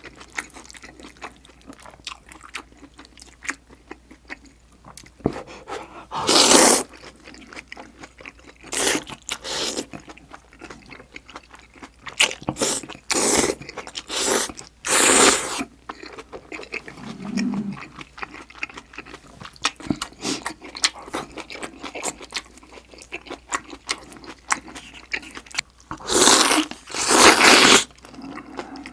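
Close-miked chewing of spicy beef small-intestine hot pot with noodles: steady wet, sticky mouth clicks, broken by loud slurps of noodles and sauce, several in the middle and a long run near the end.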